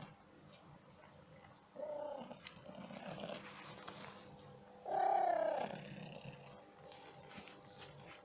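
Domestic cat with bronchitis coughing in hoarse, rasping bouts: three of them, about two, three and five seconds in, the one at five seconds the loudest.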